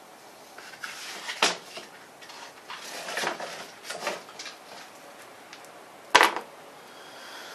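Metal tools and engine parts being handled: a few separate clicks and knocks, the sharpest and loudest about six seconds in, as bolts are taken out of a small Briggs and Stratton engine.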